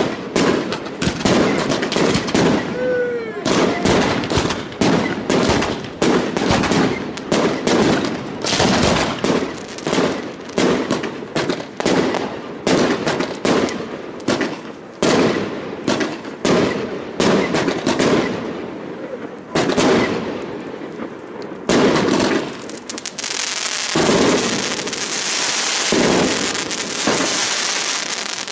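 Aerial fireworks display: a rapid string of shell and firecracker bangs, several a second, with a short whistle about three seconds in. Near the end the bangs thin out and give way to a steady crackling hiss.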